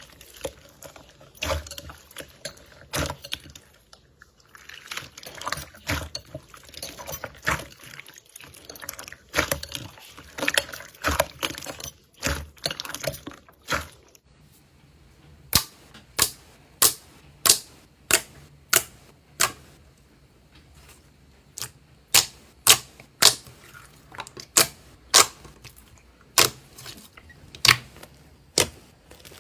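Slime being squeezed and pressed by hand, crackling with many small irregular clicks, then giving sharp separate pops about twice a second from about halfway through.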